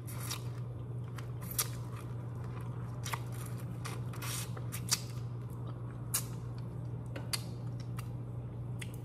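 Close-miked eating of broiled head-on shrimp: scattered sharp clicks and crunches of shell being cracked and chewed, over a steady low hum.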